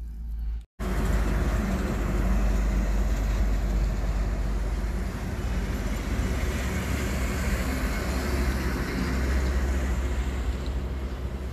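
Steady rumble of a truck driving on the highway, engine and road noise, starting after a brief cut to silence about a second in.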